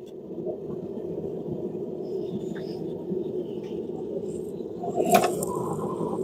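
Steady rushing noise of a running blacksmith's forge, with one short sharp metallic clank or scrape about five seconds in.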